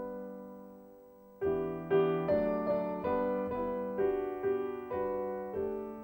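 Piano music: a held chord fading for about a second and a half, then a slow melody of single notes, about two a second.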